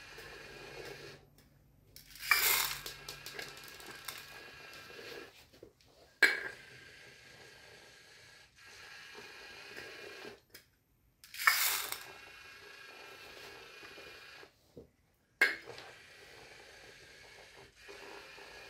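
LEGO Mindstorms EV3 robot's motors whirring steadily. Twice there is a clatter of about a second as a cup's load of small hard pieces is tipped into the robot's plastic container, and each is followed a few seconds later by a single sharp knock.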